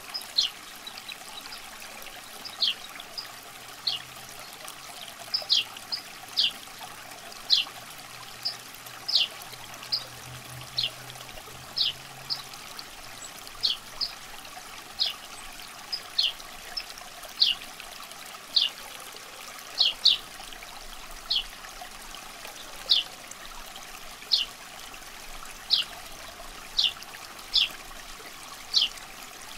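Water dripping into water, a short high plink roughly once a second, sometimes two in quick succession, over a faint steady trickle.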